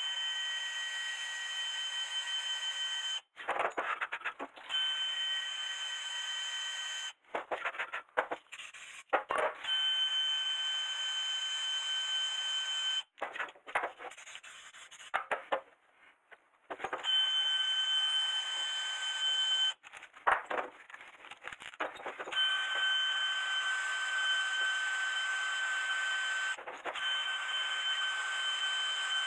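Cordless drill spinning a wire brush against a rusty brake caliper to clean it: a steady high motor whine with a scraping hiss. The drill runs for a few seconds at a time, about five times, with short pauses in between filled with clicks and knocks from handling the parts.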